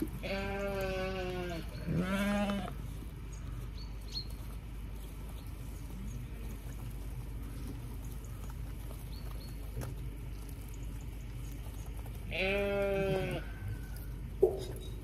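Zwartbles sheep bleating as they wait at the trough for feed. There are three bleats: a long one at the start, a shorter one about two seconds in, and another near the end.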